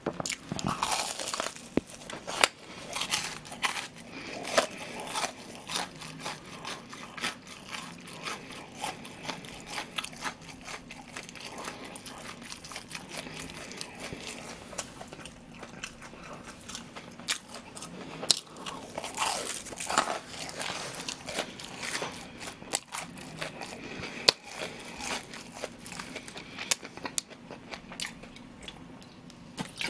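Close-miked chewing of crispy breaded deep-fried pork cutlet, with many small, sharp crunches of the fried crust and wet chewing between them.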